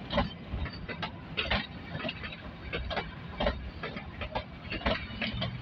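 Narrow-gauge Kalka–Shimla Railway passenger coaches rolling past, their wheels clacking and knocking over the rail joints in an uneven run of sharp clicks, two or three a second, over a low rumble.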